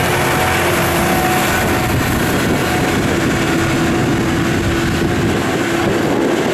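Case IH Puma 240 CVX tractor's six-cylinder diesel engine running hard under load as it pulls a 15-tonne trailer past. A steady engine tone grows stronger a few seconds in.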